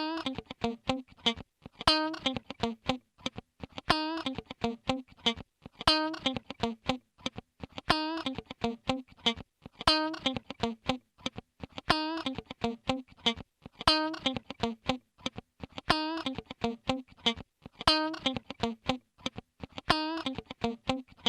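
Fire alarm signal sounding a pattern of rapid, sharply struck pulsed tones that repeats about every two seconds.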